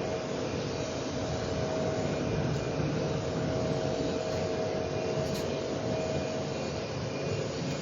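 Steady machinery noise with a constant hum running under it, unchanging throughout.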